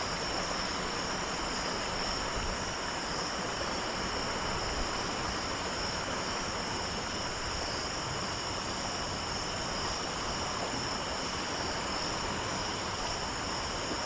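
Steady chorus of crickets and other night insects, a constant high trilling over a continuous low hiss.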